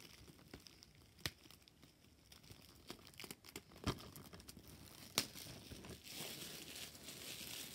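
Thin plastic shrink wrap from a DVD case crinkling as it is handled and crumpled, with a few sharp clicks along the way; the crinkling becomes denser and louder over the last two seconds.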